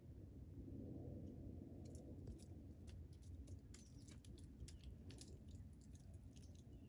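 Faint, irregular sharp clicks and scratches from a gray squirrel up in the tree canopy, starting about two seconds in, over a low rumble.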